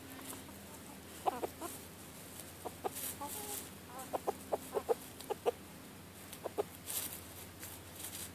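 Silkie chickens clucking: short soft clucks in scattered runs, with a quick string of clucks in the middle.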